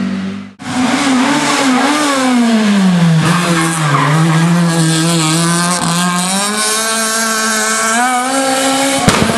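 Renault Clio rally car taking a tight hairpin. The engine revs drop and hold low while the tyres squeal through the bend, then climb steadily as the car accelerates away.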